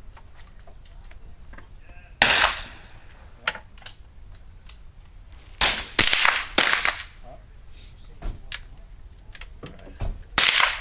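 Gunshots from rifles on a shooting range: five sharp shots, irregularly spaced, with three close together about halfway through and a few fainter cracks between them.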